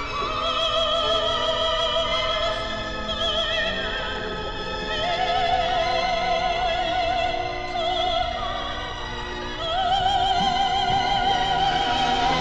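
Operatic singing: a high voice holds a string of long notes with a wide vibrato over musical accompaniment.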